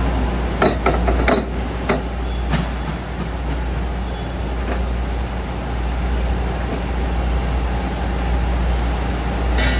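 A steady low hum, with a few sharp metallic knocks and clinks in the first two and a half seconds and one more near the end.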